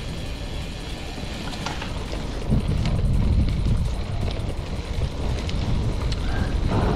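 Wind buffeting the microphone and the tyre rumble of a road bike riding on Panaracer GravelKing SK gravel tyres, with scattered small clicks from the surface. The noise gets louder about two and a half seconds in.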